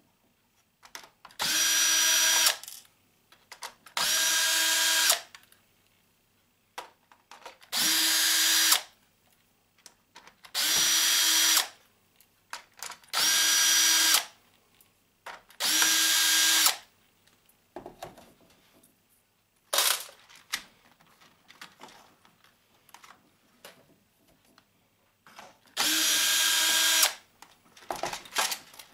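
Cordless drill/driver backing out the screws that hold a telephone's circuit board. It runs in seven spurts of about a second each, with a steady whine, plus one very short blip, and there are small clicks and handling noises in the pauses.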